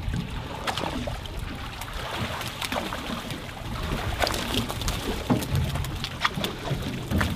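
Boat engine running at idle, with water slapping against the hulls and scattered short knocks and slaps throughout.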